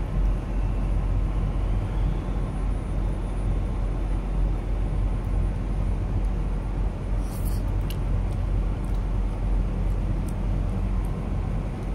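Steady low rumble of an idling diesel truck engine. A few light clicks come about seven and a half seconds in.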